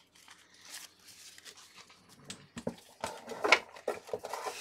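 Quiet rustling, crinkling and light clicks of trading cards and foil pack wrappers being handled on a table, busier around three and a half seconds in.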